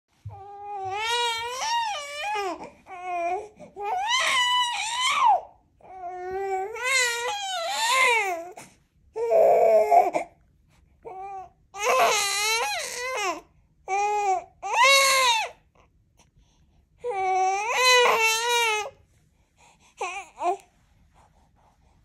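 Young baby fussing and crying in a run of short, wavering high-pitched wails with brief pauses: irritated crying while straining to roll over from its tummy. The last cries are short and trail off near the end.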